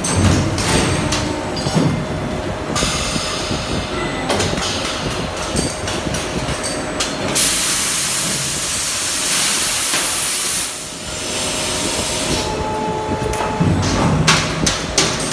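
Aluminum die-casting machine cycling with metallic clanks and clicks from the die and robot arms. About seven seconds in, a loud hiss lasts about three seconds as release agent is sprayed onto the hot open die and flashes to steam.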